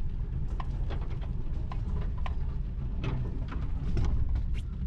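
Pickup truck driving slowly, heard from inside the cab: a steady low engine and road rumble with many scattered, irregular sharp clicks and ticks.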